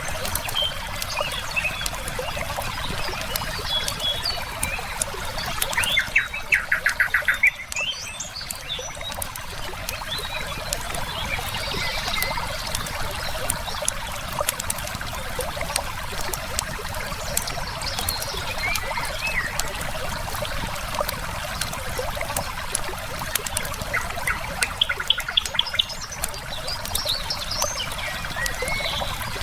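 Steady rushing of a flowing river, with small crackles and pops from a wood fire and scattered bird chirps. A rapid series of sharp, evenly spaced bird notes, the loudest sound, comes twice: about a quarter of the way in and again near the end.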